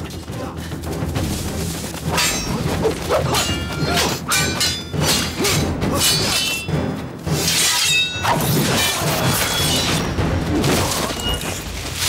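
Sword-fight sound effects: repeated metallic clashes and hits, each with a short ringing tail, over dramatic music.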